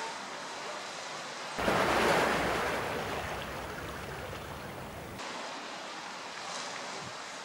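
Outdoor wind and sea noise, a steady hiss. About a second and a half in it jumps louder, with wind rumbling on the microphone, then eases back over a few seconds.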